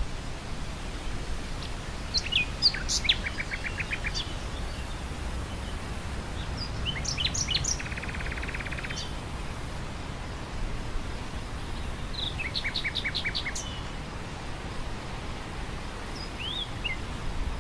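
Nightingale singing in separate phrases of varied whistles and fast rapid-fire trills, with pauses between them, over a steady low rush of wind.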